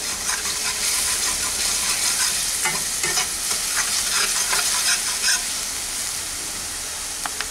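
Onion paste sizzling as it fries in hot oil in an aluminium kadai, with a spatula scraping and tapping against the pan as it is stirred.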